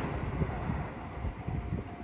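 A passing local train's rumble dies away as it moves off, with faint low knocks from its wheels. Wind buffets the microphone.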